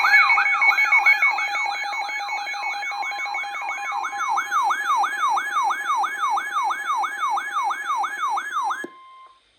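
Electronic siren-like alert tone at the start of an emergency alert broadcast: a loud yelping sweep, about three falling whoops a second, over steady tones. It cuts off about nine seconds in, leaving a brief steady tone.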